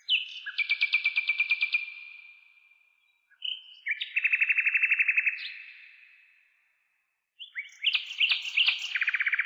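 A songbird sings three songs, each a few short notes and then a fast trill. Every song rings on in a long fading echo, as under a bridge.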